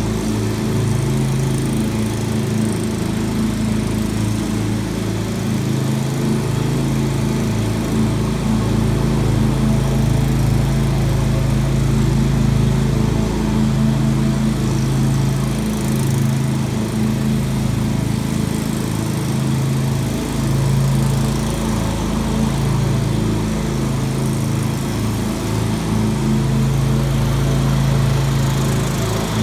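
Lawn mower engine running steadily, its pitch shifting slightly up and down now and then.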